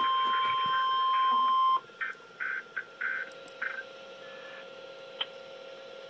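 Weather alert radio sounding the steady 1050 Hz alert tone of an Emergency Alert System tornado watch, with short beeps over it; the tone cuts off just under two seconds in. A few short beeps and a faint steady tone follow.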